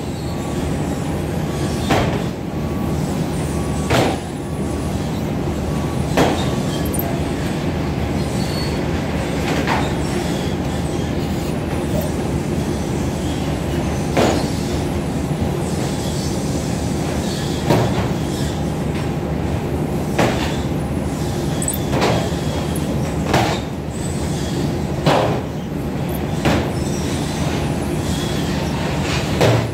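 Airport baggage conveyor belt running with a steady mechanical drone, with a sharp clunk every two seconds or so.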